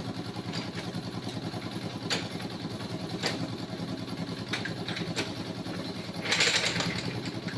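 A road construction machine's engine running steadily with a fast, even pulse, with a few sharp metallic knocks and a short rush of noise a little after six seconds in.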